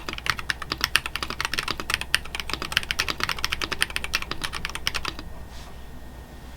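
Typing on an Ikki68 Aurora mechanical keyboard with stock DiviniKey Oni switches, a polycarbonate plate and PBT keycaps: a quick, uneven run of keystroke clacks that stops about five seconds in, leaving faint hiss.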